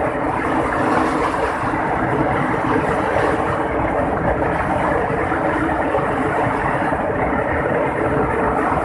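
Heavy rain pouring down in a steady, dense rush, with a faint steady hum underneath.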